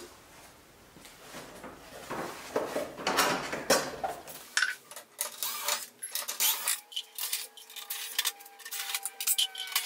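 Hands rubbing and clattering the copier's plastic panels, then a cordless electric screwdriver running with a steady whine, its pitch gliding slightly, over clicks as it backs screws out of the copier's side panel.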